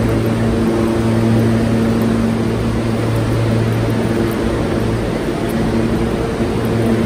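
Subway train running: a steady, loud rumble with a low electric hum.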